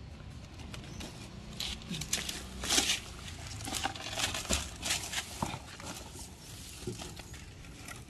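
A young owl shuffling and rustling while being fed: irregular scraping and rustling with sharp clicks. The loudest short noisy bursts come about three, four and five seconds in.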